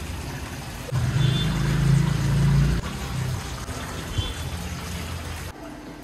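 Water pouring and trickling from a plastic fish bag being emptied, with a louder low rumble for about two seconds starting about a second in.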